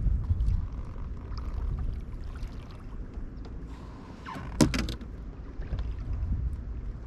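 Wind rumbling on the microphone in a small fishing boat on choppy water, with one sharp knock about four and a half seconds in.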